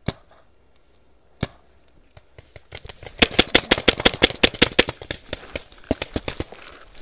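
Paintball marker firing: two single shots, then from about three seconds in a rapid string of shots, about seven a second, thinning to scattered shots near the end.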